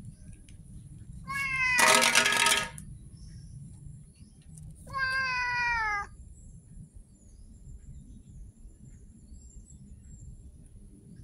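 Domestic cat meowing twice. The first meow is loud and harsh and lasts about a second and a half; the second comes a few seconds later, lasts about a second and falls slightly in pitch.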